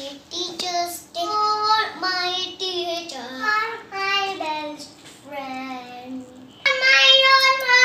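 A young boy singing a simple song on his own, holding a long note near the end.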